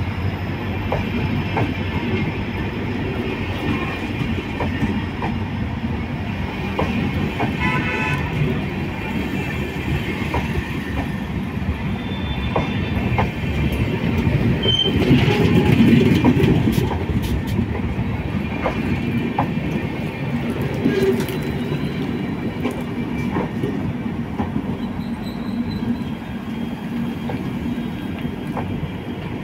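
Passenger train coaches rolling past close by as the train departs: a steady rumble of wheels on rail with repeated clicks over the rail joints, growing louder for a few seconds about halfway through.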